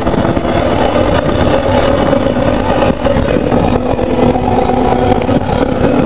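Car engine and road noise inside a moving car, steady and loud.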